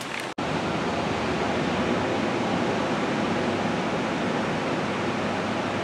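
Steady rushing noise of ocean surf, with a short drop-out about a third of a second in, after which the rush continues evenly.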